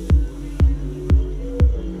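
Background electronic music with a steady beat, a kick drum about twice a second under held synth notes.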